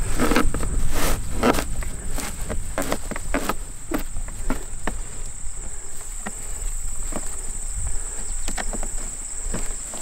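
Field insects keep up a steady high-pitched chirring, over rustling, scraping and light knocks as hands work baling twine around hay packed in a wooden manual baler; the handling noises are loudest in the first second or two.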